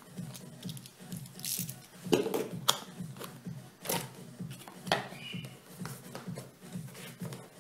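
Scissors cutting the seal of a cardboard camera box, then the box lid and flaps being opened and the packing handled: a handful of sharp clicks and short rustles, loudest about two to three seconds in. Background music with a steady low beat runs underneath.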